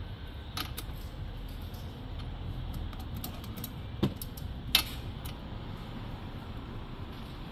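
Light clicks and rattles of parts being handled and fitted during assembly, with two sharper knocks about four and five seconds in.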